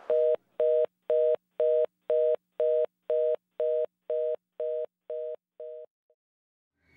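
Telephone fast-busy (reorder) tone: a two-note beep repeating about twice a second, fading gradually and stopping about six seconds in. It signals that the call cannot be completed, heard right after a 'number not in service' intercept recording.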